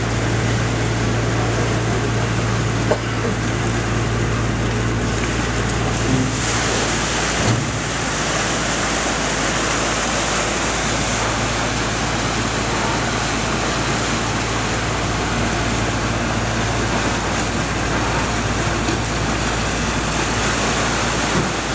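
Steady drone of a fishing boat's diesel engine over the rush of water churned up along the hull. The low hum drops out about seven seconds in and comes back a few seconds later.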